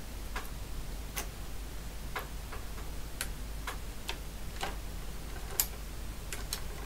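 MADAS 9E mechanical calculator's mechanism clicking about twice a second, a little unevenly, as it runs through a division cycle.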